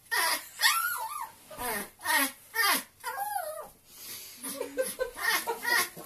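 Chihuahua making high, bird-like, seagull-like cries, a quick run of short calls that each rise and fall in pitch, with a short break near the middle. These are an excited greeting from a homesick dog whose owner has come to collect it.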